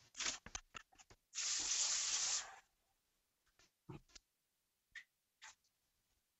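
Kitchen tap turned on, running for about a second and shut off, as hands are rinsed, after a few light knocks. A few faint clicks and knocks follow.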